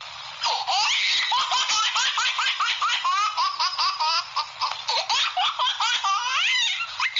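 Laughter sound effect: a high-pitched voice laughing in quick repeated bursts, about four a second, with a rising squeal near the end.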